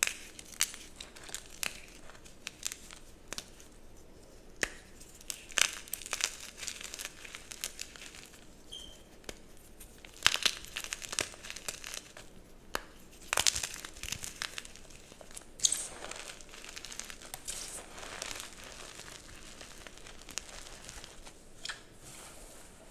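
Dyed gym chalk blocks being crushed and crumbled: irregular crunching crackles, with a few louder clusters of snaps.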